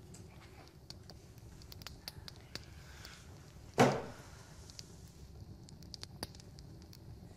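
Quiet room tone with scattered small clicks and rustles of movement, and one short, louder soft sound about four seconds in that quickly dies away.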